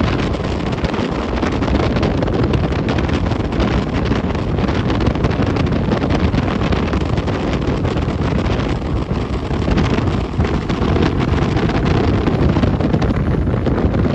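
Steady, heavy wind buffeting the microphone on a boat under way across open water.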